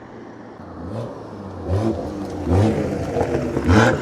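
BMW turbocharged straight-six car approaching on a flyby, its exhaust note swelling up and dropping back about four times as it revs, getting steadily louder.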